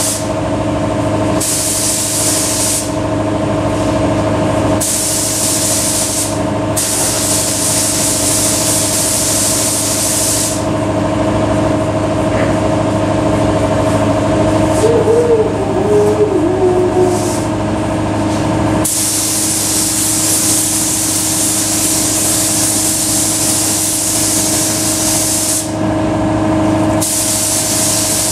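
Paint spray gun hissing in repeated trigger pulls of one to several seconds, with a long pause in the middle, over the steady hum of a running motor.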